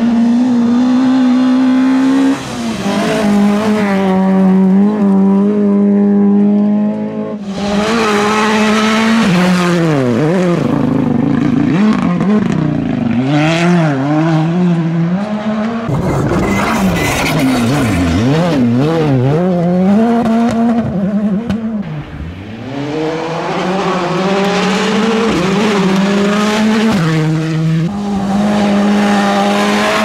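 A string of rally cars driven flat out on a gravel stage, one pass after another: engines revving high, then dropping through gear changes and lifts. Each pass has a hiss of tyres on loose gravel. The first pass is a small Peugeot 106 rally car.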